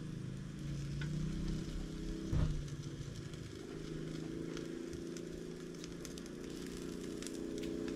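A steady low engine hum in the background, with a few light clicks and one knock about two and a half seconds in as a pan lid and utensils are handled.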